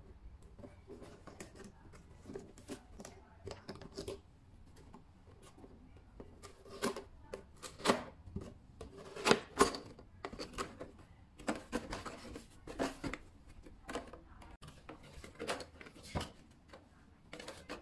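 Printed corrugated cardboard box being handled: flaps folded open and tucked shut, cardboard rubbing and scraping, with irregular taps and snaps, the sharpest a few around the middle.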